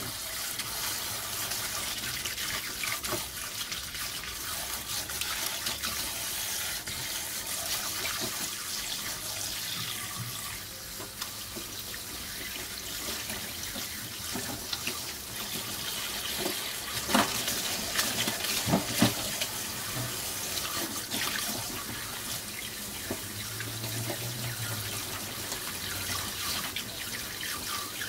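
Kitchen tap running steadily into a glass bowl of water in a stainless steel sink while hands swish and rinse bunches of garlic chives. A few sharp knocks about two-thirds of the way through.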